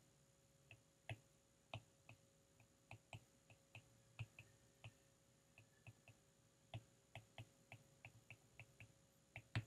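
Faint, irregular clicks of a stylus tapping on a tablet screen during handwriting, about three a second.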